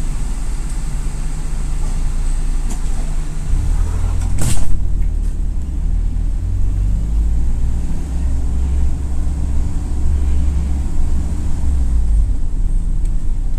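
Toyota Coaster LPG minibus heard from inside the cabin: the engine runs steadily, then its low drone grows heavier from about three and a half seconds in as the bus pulls away from a stop. A single sharp clunk about four and a half seconds in is the loudest sound.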